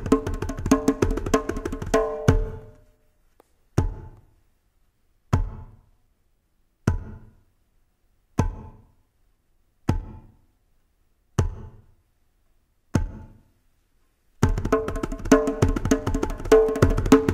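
Hand-drum percussion groove that stops about two and a half seconds in, followed by seven single drum strokes about a second and a half apart with silence between them. The full drum groove comes back about three seconds before the end.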